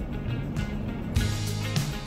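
Background music with sustained low notes; a brighter, fuller layer comes in a little past halfway.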